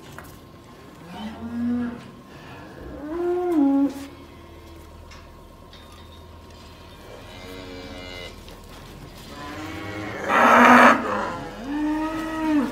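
Newborn calf bawling about five times, each call rising and falling in pitch. The loudest and harshest call comes about ten seconds in. The calf is calling while it is being fed colostrum through a hose-fed feeder held in its mouth.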